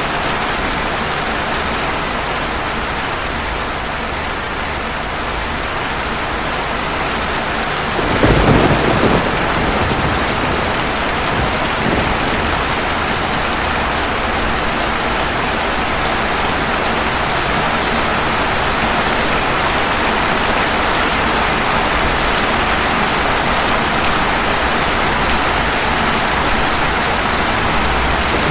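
Steady heavy rain, with a sudden thunderclap about eight seconds in that rumbles for a second or two, and a fainter rumble a few seconds later.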